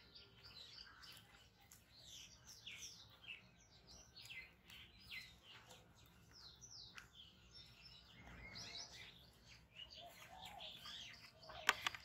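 Small birds chirping over and over in short, quick, falling notes. Two sharp clicks come near the end.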